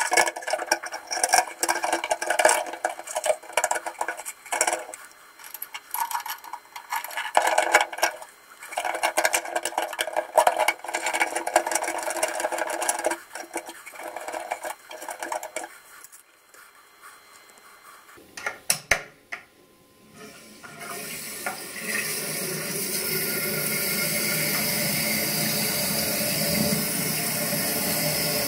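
Plastic parts of a Geberit concealed cistern's fill valve and levers clicking and rattling as they are handled and fitted, with some water sounds. After a short lull and a couple of sharp clicks, a steady hiss sets in about three quarters of the way through.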